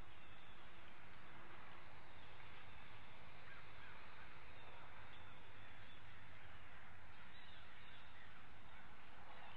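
Steady hiss of outdoor ambience picked up by a nest-camera microphone, with faint short bird calls now and then.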